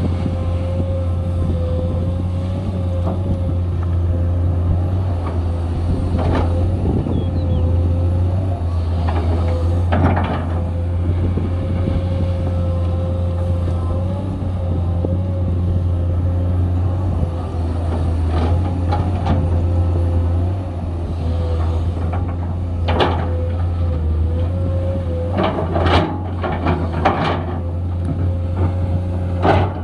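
Komatsu 210 excavator's diesel engine running steadily with a constant high whine, with intermittent clanks and scrapes from digging, several of them close together near the end.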